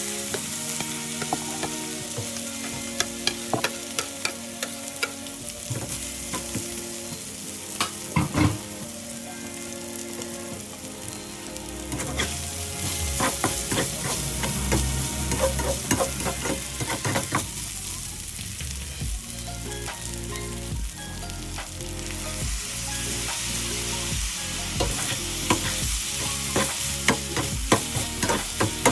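Garlic rice sizzling as it is stir-fried in a hot pan, with a spatula scraping and clicking against the pan again and again.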